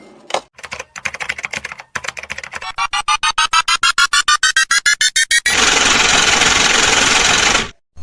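Synthesized sound effects: a run of rapid electronic pulses, about eight a second, that climb steadily in pitch. They give way to about two seconds of steady static-like hiss that cuts off suddenly.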